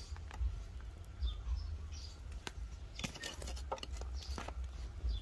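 Outdoor ambience: a steady low rumble with scattered sharp clicks and a few faint bird chirps.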